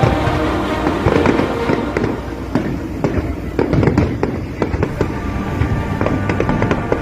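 Fireworks bursting in rapid succession, a dense run of bangs and crackling over a low rumble, with music playing along.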